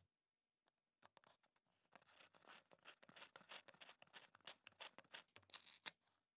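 Faint dry scraping and clicking of a wooden pencil forced into a hole in a plastic bottle cap, as pencil and plastic rub against each other. A few scattered clicks come first, then a dense run from about two seconds in that stops shortly before the end.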